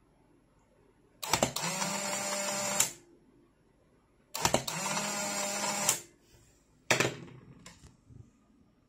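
Polaroid SX-70 Land Camera test-fired twice. Each time the shutter clicks and the camera's motor and gear train run with a steady whine for about a second and a half, then stop. A single sharp click follows near the end.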